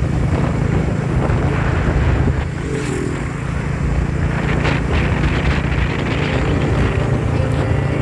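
Motorcycle engine running steadily while riding along a road, heard from the bike itself, with a constant low rumble.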